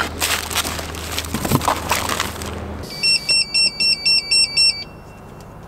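Rustling and clatter of a hand rummaging through a cardboard box of parts and plastic bags, then a fast electronic alarm: about seven short beeps stepping between two pitches, roughly four a second, from the oxygen system's EDS regulator unit.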